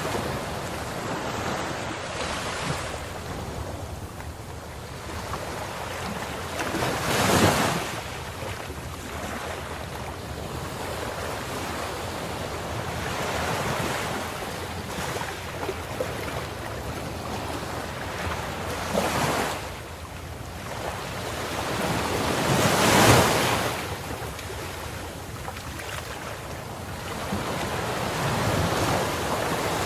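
Ocean surf: a steady wash of waves, with breakers swelling and crashing about 7 s in, again about 19 s in, and loudest about 23 s in.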